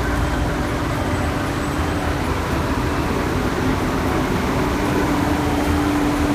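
Former JNR diesel railcars, KiHa 28 2346 among them, running as they pull out along the platform: a steady diesel drone over a low rumble.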